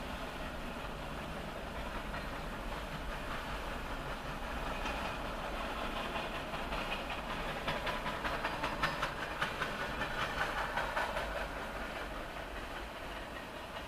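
Freight train of tank cars rolling past with a steady rumble and rush of steel wheels on rail. The sound builds toward the middle, where a quick run of wheel clacks over rail joints is loudest, then eases off near the end.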